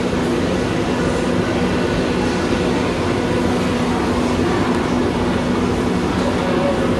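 Steady low mechanical rumble with a faint constant hum, unchanging throughout.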